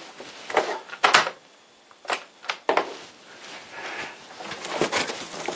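Scattered knocks, clicks and rustles in a small room as a person moves about and handles things, with a quiet moment about two seconds in.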